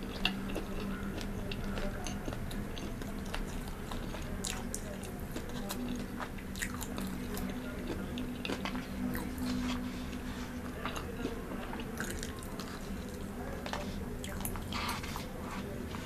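Close-miked chewing of KFC fried food: many small irregular crunches and wet mouth clicks.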